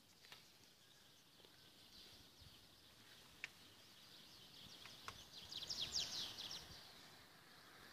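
Near silence: faint outdoor ambience with a few soft clicks, and a brief flurry of high chirps about six seconds in.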